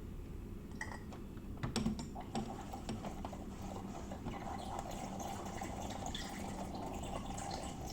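A few clicks about two seconds in, then the Xiaomi Petrus PE3320 espresso machine's steam wand running, steam hissing and bubbling into milk as a steady sound that grows stronger about halfway through.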